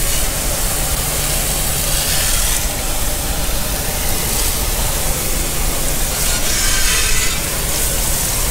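Garden hose spray nozzle blasting water onto an alloy wheel and tyre: a steady, loud hiss of spray, rinsing off the wheel cleaner and brake dust.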